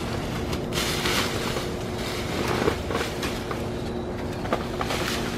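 Steady noise of road traffic passing nearby, with a few soft footsteps on dry leaves.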